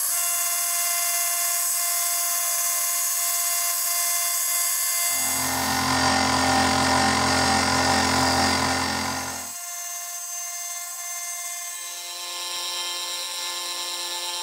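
Benchtop mini mill running with a steady high motor whine as an end mill cuts along the edge of an aluminum bar. A louder, rougher stretch of about four seconds in the middle has a low hum under it.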